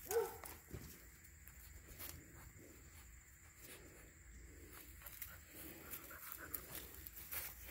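Anatolian Shepherd puppy giving one short whine just after the start, then faint rustling and mouthing as a puppy picks up and carries a rubber ball through grass.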